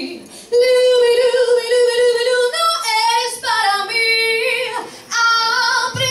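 A woman singing solo into a handheld microphone, long held notes with vibrato and short breaks between phrases about half a second in and near five seconds.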